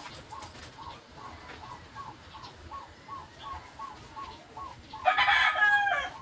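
A rooster crowing once near the end, a single call of about a second that is the loudest sound here. Before it, a faint short high chirp repeats about three or four times a second.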